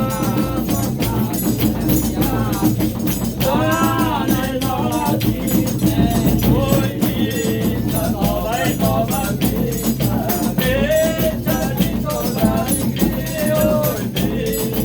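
Reisado folk group singing a melody in sung phrases over a steady beat of rattling shaken percussion.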